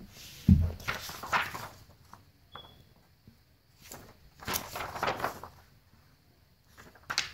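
Thin plastic backlight films from a tablet screen (diffuser and reflector sheets) handled by hand on a wooden floor: a low thump about half a second in, then crinkly rustling as the sheets are picked up and flexed, twice, with a sharp click near the end.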